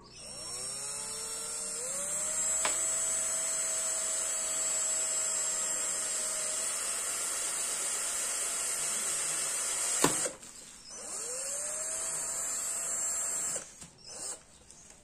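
Cordless drill motor spinning up with a rising whine and running steadily as the bit bores through a clear plastic windscreen, stopping with a sharp click about ten seconds in. It then starts again for a second, shorter run, followed by a couple of brief blips near the end.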